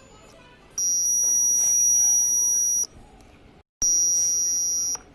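Homemade security alarm's buzzer sounding a steady high-pitched tone, twice: once for about two seconds, then again for about a second after a short break.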